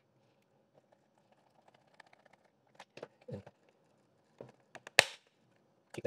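Plastic parts of a robot vacuum being handled, with faint clicks and knocks, then one sharp click about five seconds in as the cliff-sensor module snaps into place in the chassis.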